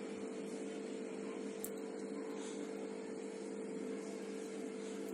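Steady low background hum with a light hiss, and a faint click about one and a half seconds in.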